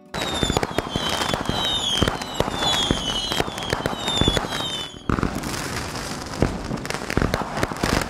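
Fireworks sound effect: dense crackling and popping with a string of falling whistles, starting abruptly. It breaks off for an instant about five seconds in, then the crackling and popping carry on.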